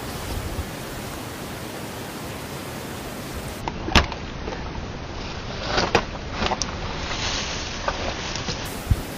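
Steady outdoor hiss, with a few sharp knocks and bursts of rustling in the middle as a large catfish is handled and laid down in the grass.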